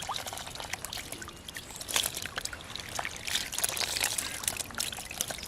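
Water splashing and trickling in many small, irregular splashes and drips.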